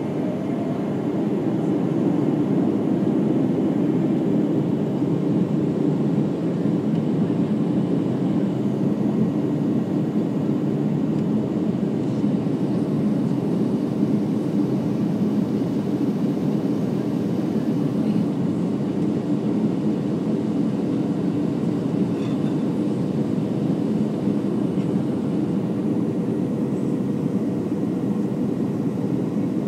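Cabin noise of a Boeing 737-800 descending on approach, heard inside the cabin at a window seat beside its CFM56-7B turbofan engine: a steady low rumble of engine and airflow with a faint hum, unchanging throughout.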